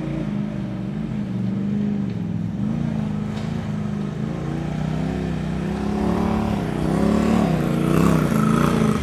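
Side-by-side UTV engine revving up and down in repeated short blips as the machine crawls over a dirt mound, growing louder as it comes closer.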